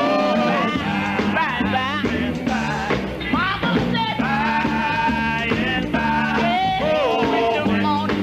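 Gospel quartet singing with instrumental accompaniment: the voices glide and hold long notes over a steady beat.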